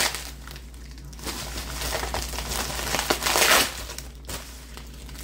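Plastic mailer packaging crinkling and rustling as it is pulled open and handled by hand, in irregular bursts that are loudest about three seconds in.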